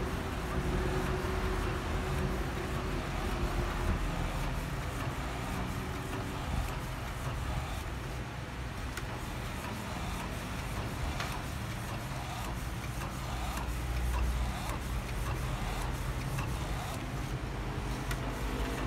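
Epson L1300 inkjet printer printing: the print-head carriage shuttling back and forth and the feed rollers advancing the sheet, a steady mechanical whirring with a low hum underneath.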